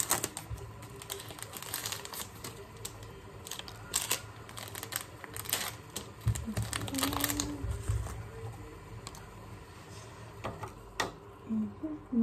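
Paper tea-bag sachets being handled over a mug: light paper crinkling with scattered small clicks and taps.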